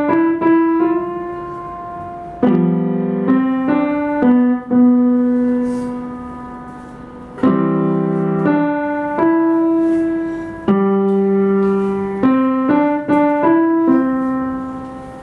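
Upright piano being played: quick phrases of single notes broken three times by chords that are held and left to ring and fade.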